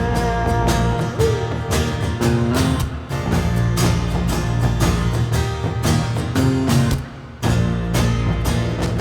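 Instrumental band music with guitars over a steady drum beat, no vocals. The band stops briefly about seven seconds in, then comes back.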